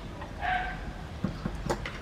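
A short animal call about half a second in, followed by a few soft clicks in the second half.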